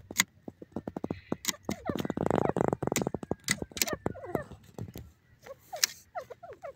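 Grey francolin calling at close range: a quick run of rapid notes about a second in, a dense fast rattling call between two and three seconds in, then short falling chirps, with sharp clicks scattered among them.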